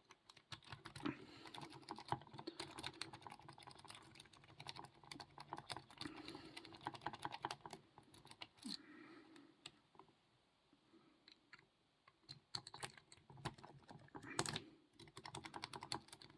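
Lock pick raked and rocked in a Mitsotomo padlock's keyway: fast, faint clicking and scraping as the pins are worked, pausing for about two seconds past the middle, with a sharper burst of clicks near the end. The raking does not open the lock.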